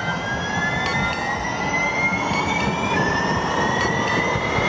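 Siemens S70 streetcar passing close by, its electric traction drive giving a whine that rises in pitch as the car gathers speed, drops back about three seconds in and climbs again, over steady rolling noise.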